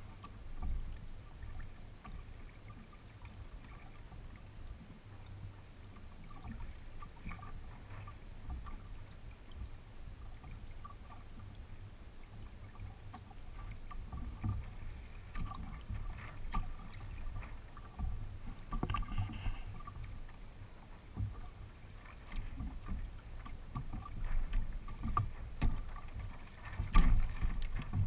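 Water lapping and sloshing against the hull and floats of a Hobie Adventure Island sail kayak moving slowly through calm water, over a low steady rumble. Scattered small knocks and clicks run through it, with a few louder knocks and splashes near the end.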